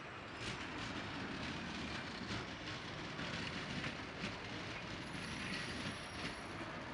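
Electric tram running on its rails: a steady rumble and hiss with scattered sharp clicks from the wheels on the track. A thin high whine comes in about five seconds in.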